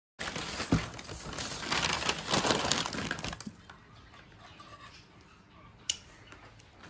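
Gift wrapping being torn and crumpled as a package is unwrapped, loudest over the first three and a half seconds. After that come quieter handling rustles and a few light clicks, with one sharper click near six seconds.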